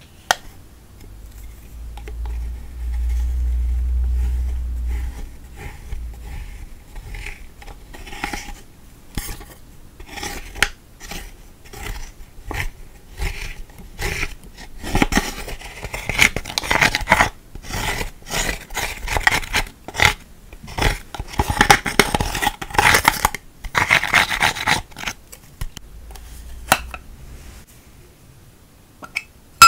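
Small plastic spatula scraping and crushing pressed highlighter powder in its compact: a run of short, gritty scrapes and taps that grows busier and louder through the middle. A low rumble, the loudest sound, comes about three seconds in.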